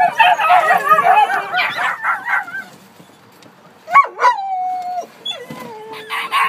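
Crated dogs yipping and barking in a rapid jumble for about two and a half seconds. After a short lull, a sharp cry about four seconds in turns into a long whine that slides down in pitch, and a second, lower whine follows near the end.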